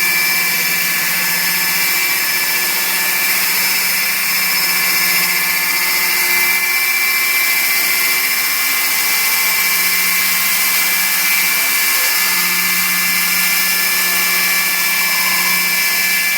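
Pentruder MDU NTGRA core drill motor running steadily with a 152 mm core bit: a constant machine whine, several high tones over a hiss.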